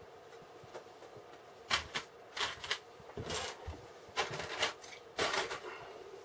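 Small plastic building bricks being handled and sorted, with short clattering clicks and rustles coming about once a second.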